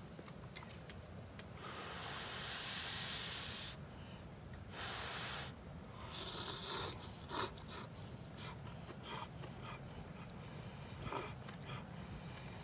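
A person blowing on and slurping hot instant ramen noodles in a few breathy rushes, the longest about two seconds in, with a few light clicks in between.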